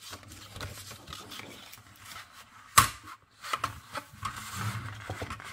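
Paper rustling and sliding as a sheet is handled and lined up on a plastic paper trimmer, with one sharp knock about three seconds in.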